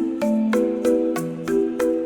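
Background music: a light tune on mallet percussion, marimba-like, with evenly spaced struck notes over a held bass note.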